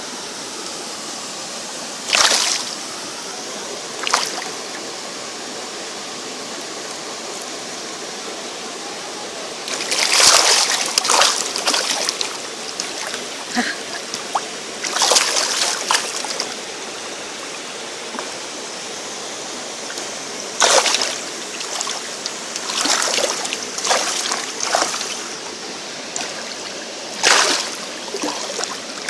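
Steady rush of a waterfall and its stream, with short splashes of water breaking in at irregular moments, several close together in the middle and later part.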